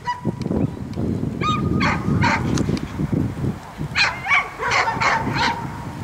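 Dog barking in short, high yelps, in a run about a second and a half in and another about four seconds in, over a low background murmur.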